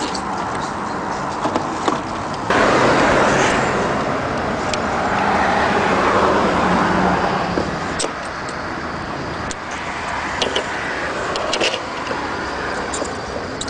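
Scattered light clicks and knocks of a plastic headlight unit being worked free from a 1999–2004 Volkswagen Jetta, over a steady rushing noise that jumps louder about two and a half seconds in and eases off around eight seconds.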